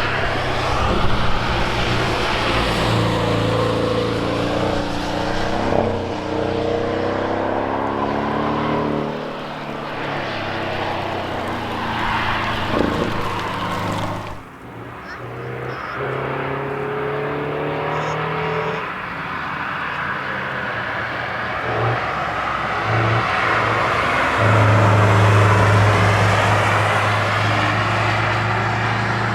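Cars driving past on the Nürburgring Nordschleife, one after another, their engines revving up and down through the gears over a steady hiss of tyres and air. The sound changes abruptly about halfway through.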